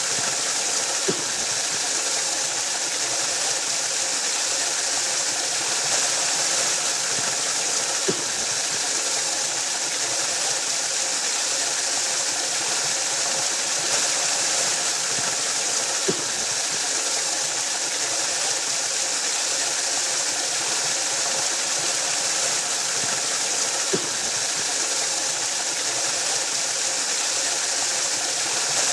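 Waterfall rushing steadily: an even, hissing roar of falling water, strongest in the high range, with a faint click about every eight seconds.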